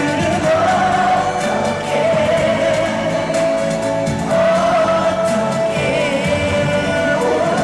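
Male singer's voice singing live into a handheld microphone over the song's backing music, amplified through a concert sound system, with several long held notes.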